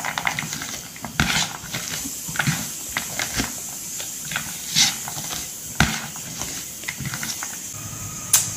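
A hand squeezing and mixing chopped raw vegetables on a plate: irregular wet crunching and rustling, with a sharper click near the end.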